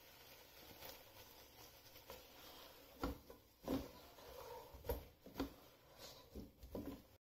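Spatula scraping and knocking against a cooking pot while chicken pieces are stirred in sauce: a handful of short, separate scrapes starting about three seconds in. The sound cuts off suddenly just before the end.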